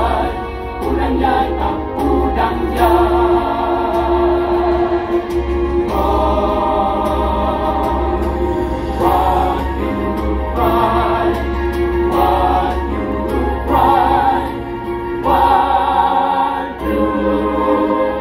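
Mixed choir of women's and men's voices singing a Christian choral piece in harmony, with long held chords and brief breaks between phrases.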